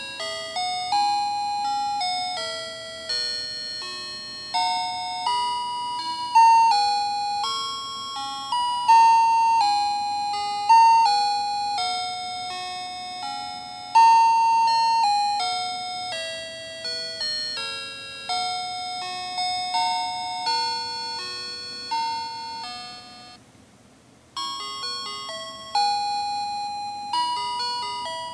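Fisher-Price light-up musical baby toy playing an electronic chime melody through its small speaker: a simple tune of single bell-like notes, each struck and fading, with a short break near the end before the melody starts again.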